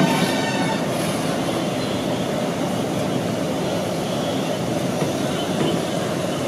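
Steady rushing roar of a gas burner firing under a large steamer pot.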